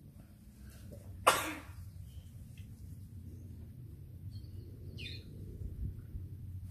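A single short, loud cough about a second in, over a low steady outdoor rumble. Faint high bird chirps come a few seconds later.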